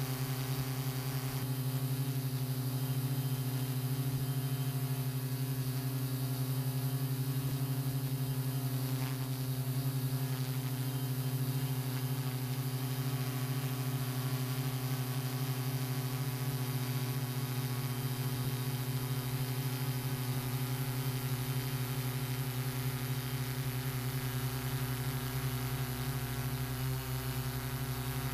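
American Drones 'Eagle' hexacopter's electric motors and propellers humming steadily in flight: a strong low tone with several higher overtones.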